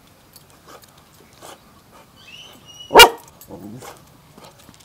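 A dog barks once, a single short, loud, sharp bark about three seconds in.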